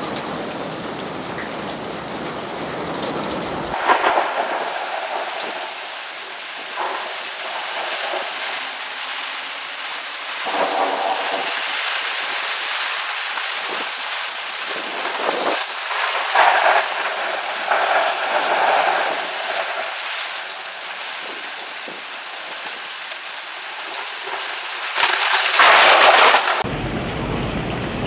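Heavy rain falling steadily, with several rolls of thunder over it, the loudest near the end.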